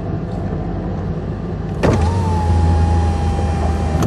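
Vehicle interior running sound: a steady low engine rumble. About two seconds in there is a click, then the rumble grows louder with a steady high whine over it, and another click comes near the end.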